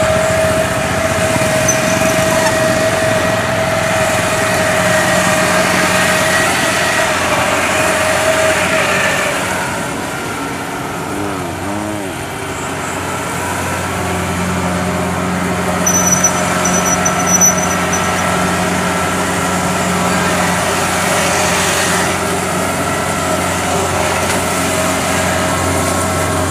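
Kubota DC70 combine harvester's diesel engine running steadily as the machine crawls through a flooded rice paddy. A steady high whine over the engine fades out about nine seconds in, the sound dips briefly, then the low engine note grows stronger.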